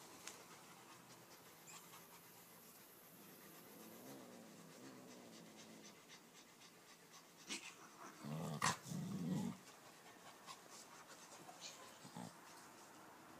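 Rottweiler puppy panting softly as it play-wrestles a kitten, with a louder, low vocal sound lasting about a second and a half a little past the middle, marked by one sharp click.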